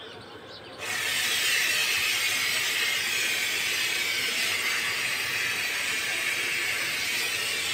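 LPG gas hissing steadily from a cylinder's rubber hose as it fills a large rubber balloon, starting suddenly about a second in.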